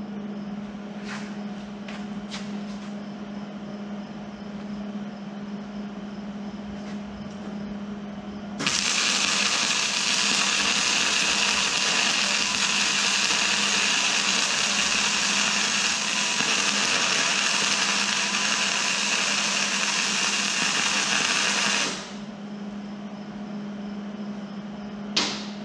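An electric welding arc crackles and hisses steadily for about thirteen seconds while a weld is laid on a steel bumper mount. It starts abruptly about eight seconds in and cuts off sharply, with a steady low hum and a few small clicks before and after.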